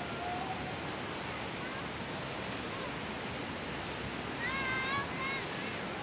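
Fast mountain river rushing over rocks in a steady roar of white water. A high voice calls out briefly about four and a half seconds in.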